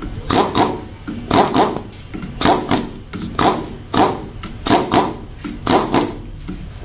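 A dog barking over and over, often two barks close together, about once a second.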